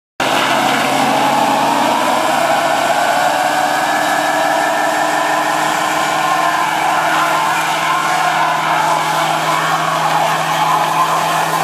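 Lexus LS400's 1UZ-FE V8 held at steady revs while the rear tyres spin in a burnout, the tyres squealing continuously.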